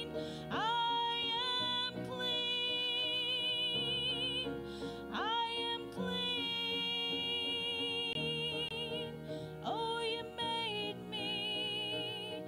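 A woman singing a slow Christian solo into a microphone over instrumental accompaniment, holding long notes with vibrato and sliding up into each new phrase, about four times.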